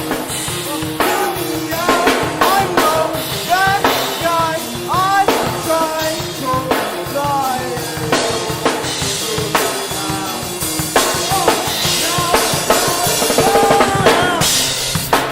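Drum kit and electric guitar playing loudly together, with the drums keeping a steady beat and the guitar playing sliding, bending notes over it.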